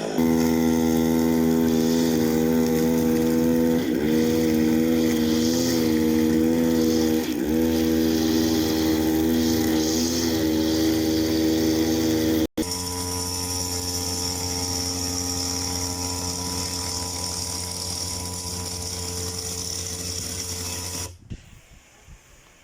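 Grass cutter's small engine running at high speed, a steady drone whose pitch dips briefly twice as if loaded. It cuts off abruptly about twelve seconds in, then drones steadily again at a slightly different pitch until it drops away near the end.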